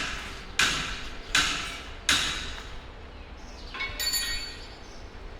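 A hammer striking metal three times, about three-quarters of a second apart, each blow ringing briefly. About four seconds in comes a short, high metallic ring.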